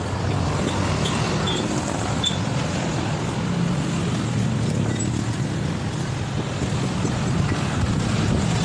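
A motor vehicle engine running steadily, a low even hum that neither rises nor falls.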